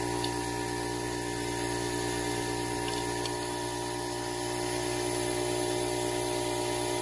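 A small electric motor running steadily, humming with several fixed tones that hold level throughout.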